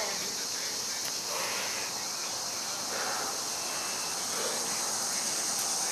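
A man breathing hard in slow, heavy breaths, about one every second and a half, as he recovers between deadlift reps, over a steady high hiss.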